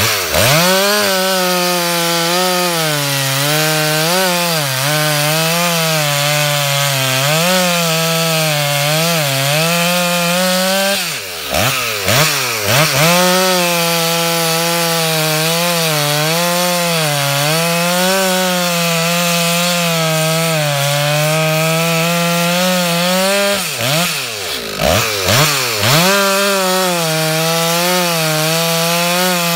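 Ported Stihl MS440 two-stroke chainsaw cutting through a block of oak under load, its engine pitch wavering as the chain bites into the wood. Twice, about a third of the way in and again near the end, the revs drop briefly and climb back.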